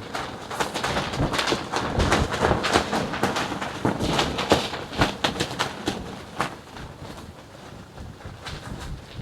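Gusty wind whipping loose satin clothing, which flaps in many quick, irregular snaps while the wind rumbles on the microphone. The flapping eases about six seconds in.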